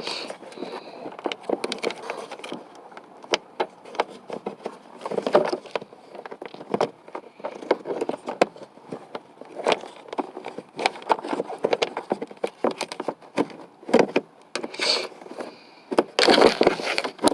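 Irregular plastic clicks, knocks and scraping as the interior door handle of a 2003 Honda Accord is worked and pushed into place in the door, with a busier cluster of knocks near the end.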